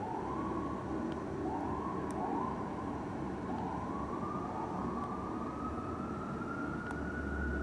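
Fire engine siren rising in pitch in several short climbs, then in one long climb to its highest pitch near the end, over a steady low rumble.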